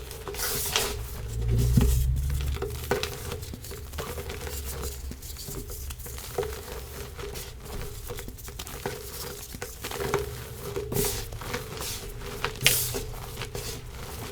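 Pressed chalk blocks being crushed and crumbled by hand, giving irregular dry crunches and crackles, with a low rumble of handling about two seconds in and one sharp crack near the end. A faint steady hum sits underneath.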